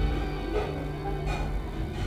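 Background music of long held notes over a steady deep bass.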